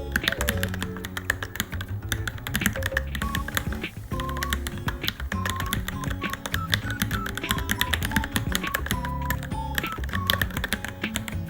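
Fast, continuous typing on a Varmilo Minilo mechanical keyboard, a dense run of key clicks, over background music.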